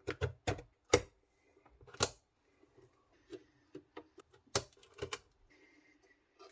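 Sharp clicks and taps of PC components being handled and pressed into place on a motherboard: about a dozen separate clicks, loudest near the start, around one and two seconds in, and a cluster near the end.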